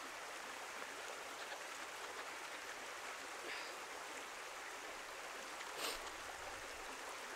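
Steady rush of a woodland stream, with one brief rustle about six seconds in.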